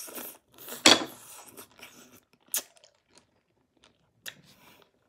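Hard Sweetarts candy being crunched and chewed close to the microphone: a loud sharp crack about a second in, then a few softer crunches and clicks.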